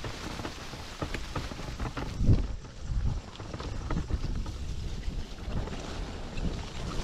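Low rumble of mountainboard tyres rolling fast over a rough, wet dirt trail, with wind buffeting the microphone. Scattered knocks from bumps, the loudest a thump a little over two seconds in.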